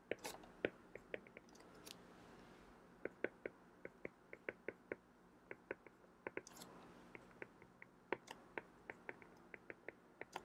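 Faint, irregular ticking of a stylus tapping and dragging on a tablet screen during handwriting, a few ticks a second, with a few brief soft hisses in between.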